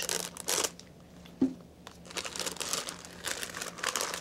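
Plastic packaging crinkling and crackling in bursts as a tube-feeding administration tubing set is pulled out of its plastic bag, with one brief low thump about a second and a half in.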